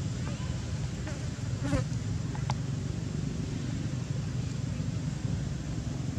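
A steady low buzzing drone runs throughout, with a few brief faint high squeaks about one and a half to two and a half seconds in.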